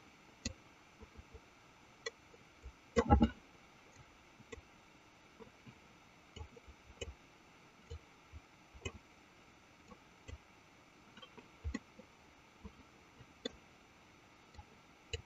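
Sparse, irregular clicks of a computer mouse, with one louder dull thump about three seconds in.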